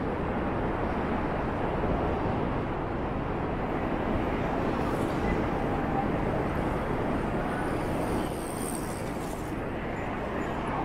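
Steady rushing noise of a moving bicycle ride: wind across the microphone and tyres rolling on the path, easing slightly for a couple of seconds near the end.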